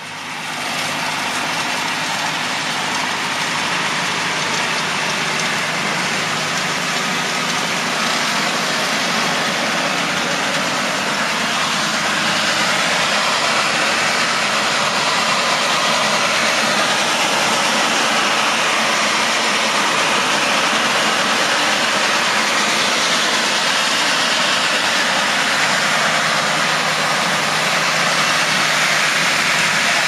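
Fendt 312 Vario tractor working under way with a mounted Vogel&Noot MasterDrill pneumatic seed drill: a steady, loud engine-and-machinery noise with a lot of hiss. It comes in suddenly at the start and grows a little louder after about twelve seconds.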